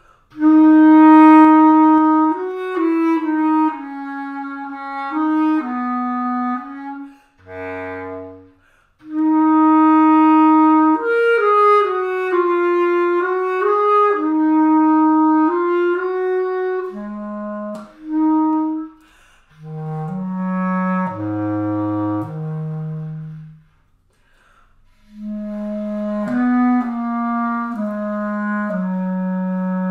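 Solo bass clarinet playing a melodic passage, moving between low and middle-register notes in phrases separated by short pauses, the longest about two-thirds of the way through.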